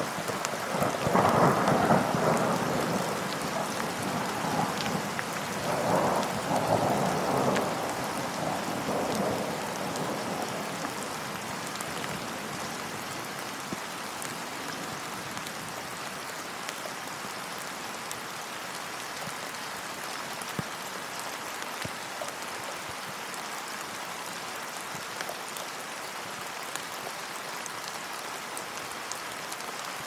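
Thunderstorm with steady rain. Rolls of thunder swell about one and six seconds in, then it settles to an even rain hiss with scattered drop ticks.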